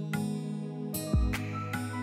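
Instrumental background music: plucked notes over held tones, with a regular low beat.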